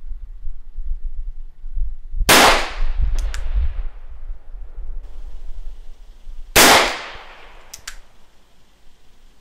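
Two single shots from a 7.62 mm Nagant M1895 revolver, about four seconds apart, each a sharp crack with a short ring-out. About a second after each shot comes a faint double click.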